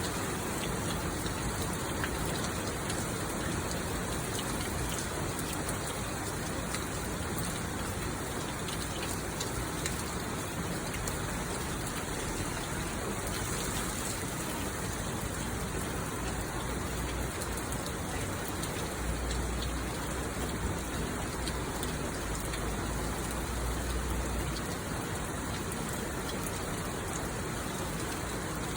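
Heavy downpour of monsoon rain, falling steadily and pattering on surfaces with a dense, even hiss.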